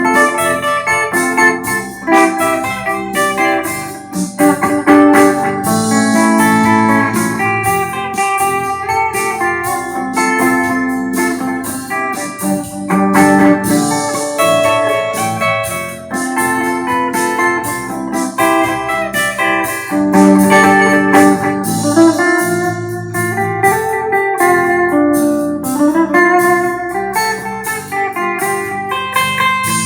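Electric guitar on a clean, undistorted amp tone playing melodic lines over a backing track with steady drums and keyboard.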